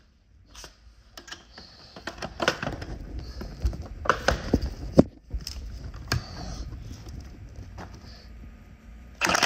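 Scattered metal clinks and knocks of tools and strut parts being handled while a coil spring compressor is worked, with the sharpest knock about five seconds in.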